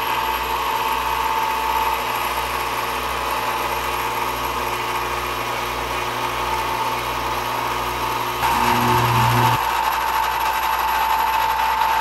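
HAM-IV antenna rotor's motor and metal gear train running steadily, freshly greased: nice and even and much smoother, though still noisy. About eight and a half seconds in, the sound changes and gets louder.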